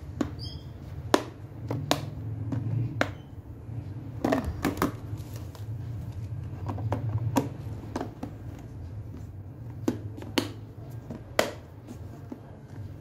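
Clear plastic food containers with snap-lock lids being handled: irregular sharp clicks and knocks of plastic on plastic, with a quick cluster about four seconds in, over a steady low hum.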